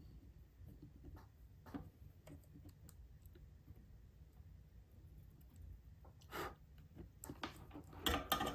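Faint, scattered clicks and taps of small tools and wires being handled while a wire is soldered to a model locomotive motor's terminal: one about two seconds in, a stronger one near the middle, and a few close together near the end, over a low steady hum.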